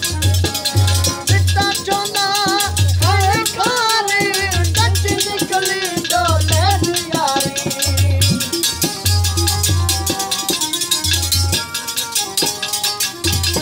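Punjabi folk music: a chimta's jingles rattling steadily over a harmonium and a repeated low drum beat. A man's voice sings a wavering melodic line from about two to seven seconds in.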